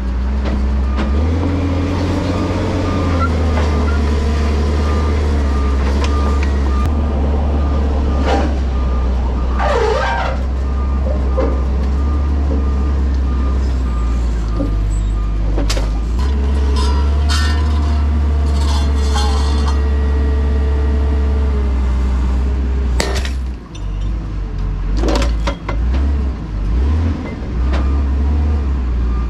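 A carrier machine's engine and hydraulics run steadily while a cold cut rail saw attachment grips and moves steel rails, with several sharp metal clanks of rail on rail. A pulsing high beep sounds through the first half.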